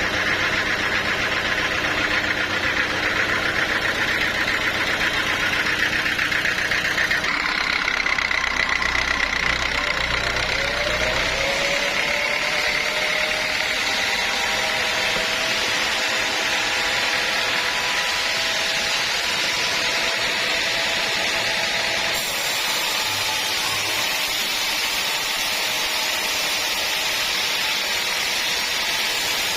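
Sawmill machinery running steadily: a motor's hum with high saw noise. A tone rises in pitch about ten seconds in, and the sound changes abruptly twice, about a quarter of the way in and again about three quarters in.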